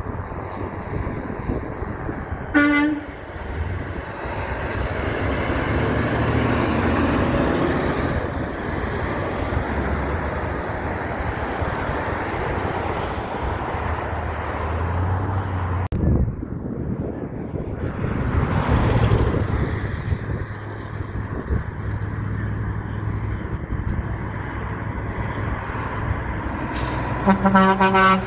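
Heavy trucks passing, engine and tyre noise swelling and fading as each goes by. A truck horn gives a short toot a few seconds in and a longer honk right at the end.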